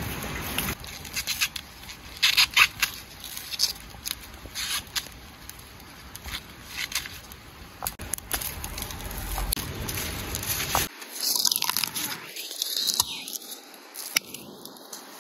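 Small wood fire crackling as sticks are pushed and scraped into it, with scattered sharp snaps and clicks. Later, corn husks and a cob scrape and rustle in the hands.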